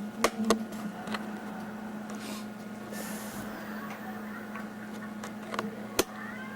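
Sharp clicks and taps from handling a camcorder and working its controls, a few near the start and a louder one near the end, over a steady low hum.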